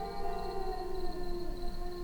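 Cats crying: several long, drawn-out wails overlapping, slowly falling in pitch.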